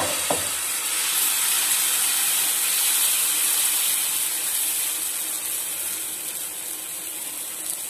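Dosa batter of pearl millet and sorghum, with a little wheat flour, sizzling on a hot dosa tawa as it is poured and spread thin with a ladle. A steady hiss that slowly fades.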